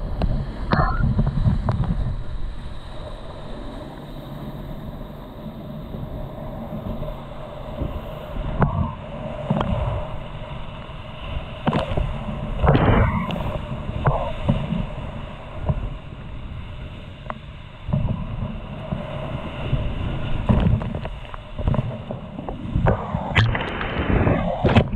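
Whitewater rapids of a high-water river rushing around a kayak, with rumbling water and wind buffeting on the camera's microphone. Irregular splashes from paddle strokes and waves over the boat break through several times, the biggest near the end.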